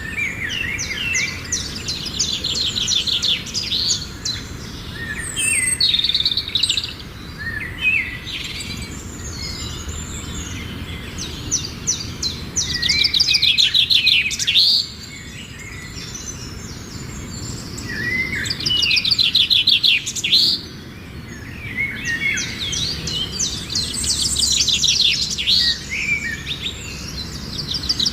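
Baby finches giving high, rapid begging chirps as they are fed. The calls come in bouts of a few seconds, about five times, with scattered single chirps in between.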